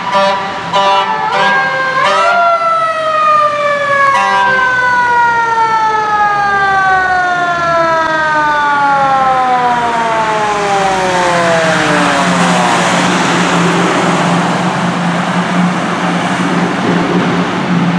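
Fire engine responding: a few short horn blasts, then its siren winds up and slowly winds down over about ten seconds. After that the engine's hum and its tyres hissing through slush on the road carry on as it passes.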